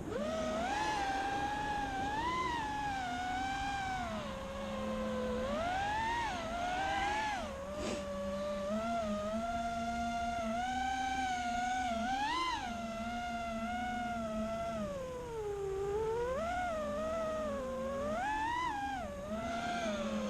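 Brushless motors and propellers of an FPV freestyle racing quadcopter whining in flight, the pitch sweeping up and down as the throttle is worked.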